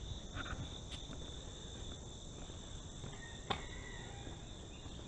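Steady, high-pitched insect chorus with a low background rumble, broken by a single sharp click about three and a half seconds in.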